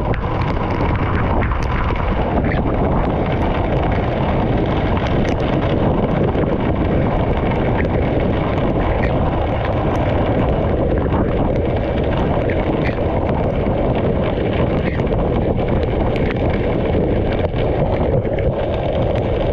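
Severe thunderstorm wind blowing hard and buffeting the microphone in a loud, steady rush, with scattered sharp ticks throughout.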